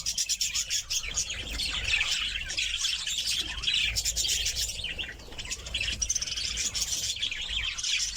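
Flock of caged small parrots chattering in an aviary: many rapid overlapping chirps with no pause.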